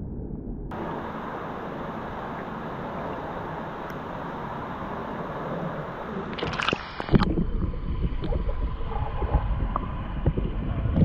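Pool water sloshing around a capsized kayak, with a splash about six and a half seconds in. After that the sound turns muffled and low, with gurgling and knocks, as heard by a microphone under the water while the paddler hangs upside down setting up an Eskimo roll.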